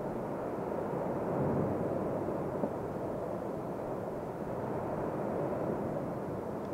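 Steady, even rushing roar of the Cumbre Vieja volcanic eruption, with a couple of faint clicks.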